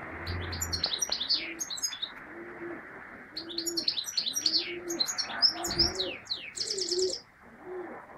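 European goldfinch singing: two bursts of quick, high twittering chirps and trills, the second longer and ending in a buzzy trill. Underneath, a pigeon coos over and over in low, rolling notes.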